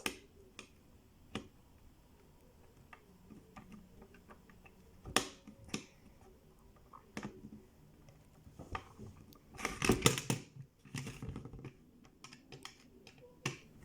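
Scattered small clicks and scrapes of a screwdriver working a screw into a plastic toy car, with a louder clatter of handling about ten seconds in.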